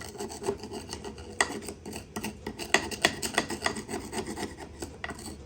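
Irregular hand scraping and rubbing on metal cross-vice parts, broken by many small sharp clinks.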